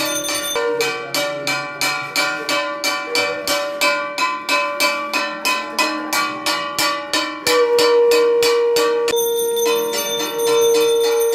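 Arati ritual sounds: a brass kashor gong struck in a steady beat of about three to four strokes a second, with bells ringing. A conch shell is blown in one long, steady note from about seven and a half seconds in, the loudest sound; the gong stops just after nine seconds, the conch breaks briefly, and the conch comes back near the end.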